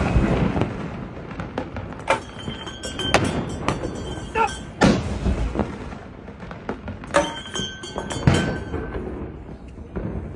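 A cannon gun salute: saluting cannons firing one after another, about six loud shots at uneven intervals, each echoing away.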